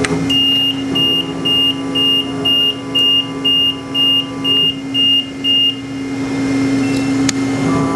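An electronic beeper on a Hyd-Mech H-14A horizontal bandsaw sounds a run of about eleven short high beeps, about two a second, over the steady hum of the running machine. The beeping stops about 6 seconds in, and a sharp click follows near the end.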